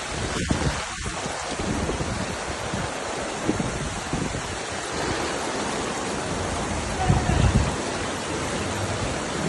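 Heavy rain falling on a flooded street, a steady, dense hiss, with gusts of wind thudding on the microphone, strongest about seven seconds in.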